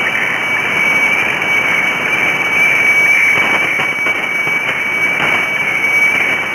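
Shortwave radiofax (weather fax) signal heard through a receiver: a steady high tone over a band of radio hiss and static.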